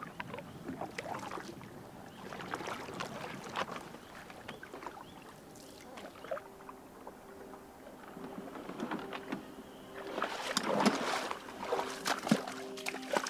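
A canoe being paddled through calm, shallow water: paddle strokes dip and drip irregularly, then heavier splashing and sloshing comes in from about ten seconds in. A low steady hum joins about six seconds in.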